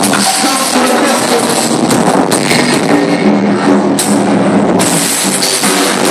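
Loud music with a drum beat over a nightclub sound system, picked up on a phone's microphone. The highest treble drops away for a second or two in the middle, then returns.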